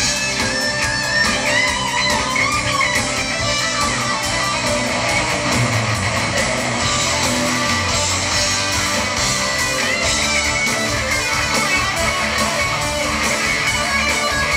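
Live pop band playing an instrumental passage led by guitar, at a steady level throughout.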